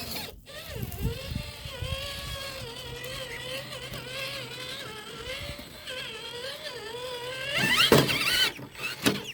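Electric drive motor and gearbox of a Traxxas TRX-4 Bronco RC crawler whining under throttle as it climbs rocks on a 3S battery, its pitch wavering as the throttle is worked. About eight seconds in it revs up into a louder, rising whine.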